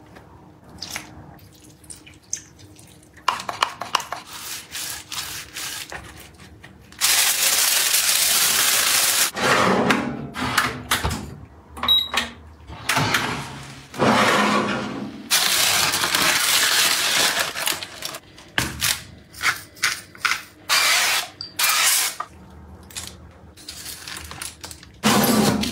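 A run of kitchen food-preparation noises: bursts of rustling and scraping, some several seconds long, between quieter clicks and handling sounds. About twelve seconds in, the countertop oven's control panel gives a short beep as its button is pressed.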